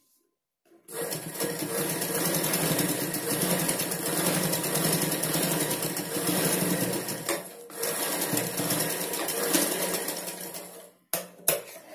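Black straight-stitch sewing machine running steadily, stitching a seam through cotton blouse fabric. It starts about a second in, dips briefly about seven and a half seconds in, and stops near the end, followed by two short clicks.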